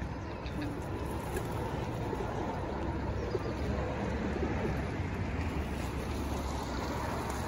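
Pigeons cooing faintly close by over a steady low rumble of outdoor background noise.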